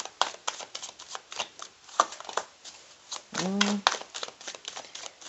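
A tarot deck being shuffled by hand, the cards flicking and slapping in quick, irregular clicks, with a card drawn and laid on the spread.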